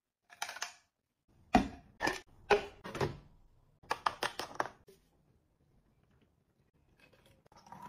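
Hard plastic knocks and clicks as a plastic spray dispenser and a toilet-cleaner bottle are handled: four sharp knocks, then a quick run of clicks as the bottle's cap is worked open.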